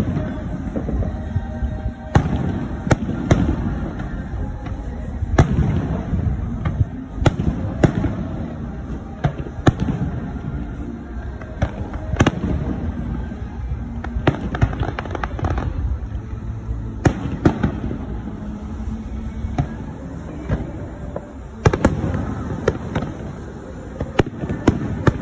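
Aerial fireworks display: irregular sharp bangs and crackles of shells bursting, several a second at times, over a continuous low rumble of further bursts.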